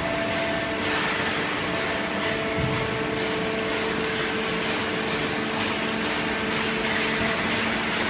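Horizontal baling line and its infeed conveyor running: a steady machine hum with a few held tones and occasional faint clatter.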